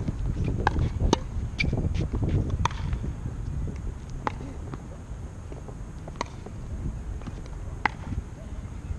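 Sharp knocks of tennis balls striking rackets and bouncing on a hard court, several in the first three seconds and then one every second or two, over low wind rumble on the microphone.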